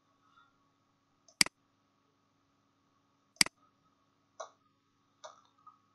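Computer mouse button clicks: two sharp clicks about two seconds apart, then two softer clicks near the end, over a faint steady electrical hum.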